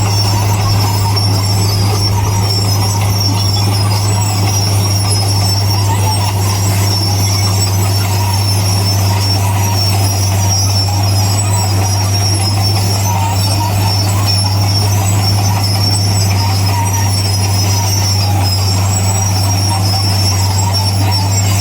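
Bulldozer working: its diesel engine runs with a steady, deep drone, and a high metallic whine rides above it.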